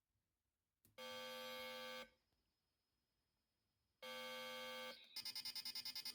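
Electronic ring signal from an ESP32 wireless doorbell's speaker: a click, then a buzzy electronic tone held for about a second, a pause of about two seconds, a second slightly shorter tone, then a rapidly pulsing tone that starts about five seconds in and keeps going.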